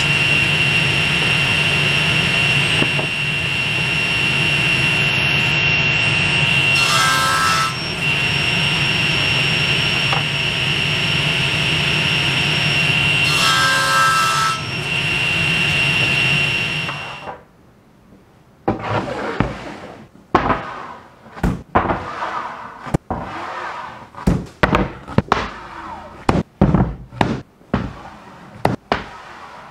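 Table saw running with a steady high whine, its blade crosscutting red oak boards on a sled, with short louder surges as the blade goes through the wood about seven and fourteen seconds in; the saw noise cuts off suddenly about seventeen seconds in. Then solid oak boards are set down and stacked on a workbench, a string of sharp wooden knocks.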